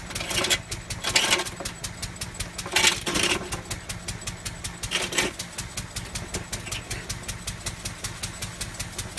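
Lister D single-cylinder stationary engine running steadily on the belt to a circular saw bench, its exhaust beating evenly about five times a second. A few short scraping, rustling noises come over it in the first five seconds, the loudest about three seconds in.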